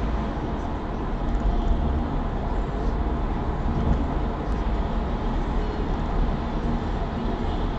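Steady road and tyre noise with a low engine drone, heard inside the cabin of a Honda Civic hatchback driving on a highway.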